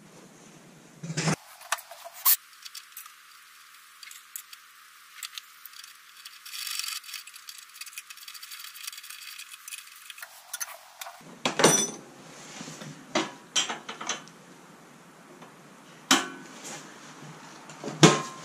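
Irregular sharp metallic clinks and knocks from handling a perforated steel exhaust pipe and fitting it onto a garden tractor engine's exhaust outlet.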